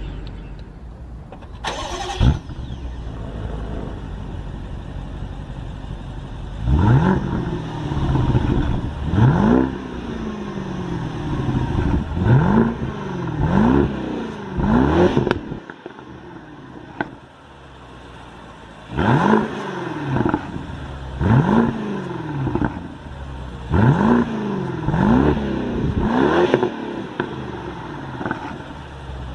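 BMW 650i's twin-turbo V8 running at idle, with its exhaust note blipped about eleven times in three clusters; each rev rises sharply and falls back to idle. A sharp burst about two seconds in.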